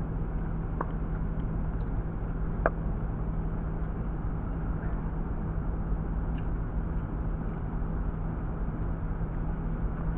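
Steady background rumble with a low hum, broken by a few sharp pops from distant pickleball play: one about a second in, the loudest near three seconds in, and a faint one past the middle.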